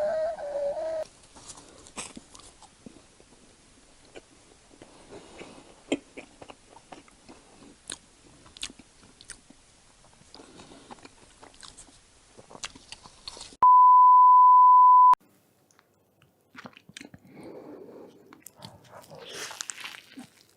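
Close-miked chewing and biting of food, with small wet clicks and smacks. Just past the middle a steady high beep tone sounds for about a second and a half, the loudest sound here, and after it the crunching gets denser and louder.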